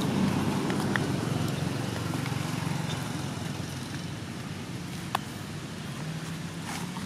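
Low, steady engine rumble of a motor vehicle, strongest near the start and slowly fading, with a single sharp click about five seconds in.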